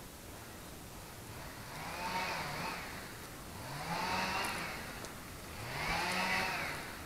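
A small engine revved in three short bursts about two seconds apart, each rising in pitch, holding briefly and falling back.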